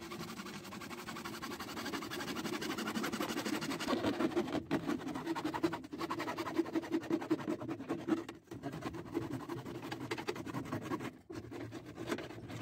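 Hacksaw cutting through a PVC drain pipe in quick back-and-forth strokes, stopping briefly four times.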